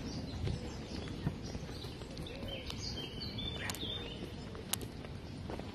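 Outdoor park ambience: a steady low rumble with a few sharp clicks, and small birds chirping briefly in the middle.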